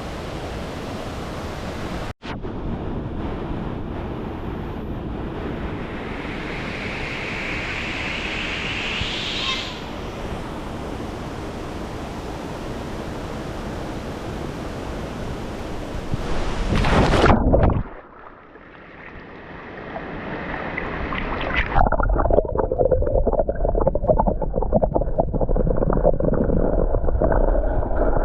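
Steady rushing roar of falling water from a waterfall, with a brief dropout about two seconds in. Past the middle it swells, drops away, then returns duller and rougher.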